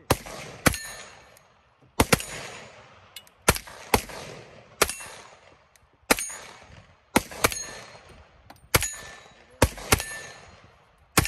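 Gunshots fired one at a time from an MP5-style pistol, about a dozen in uneven succession, half a second to a second and a half apart, each followed by a short echo dying away.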